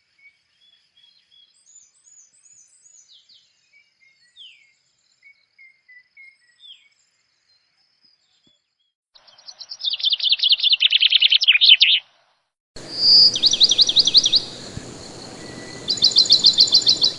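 Small birds chirping: faint scattered high calls at first, then, from about nine seconds in, loud rapid trills of quickly repeated notes in several bursts that start and stop abruptly.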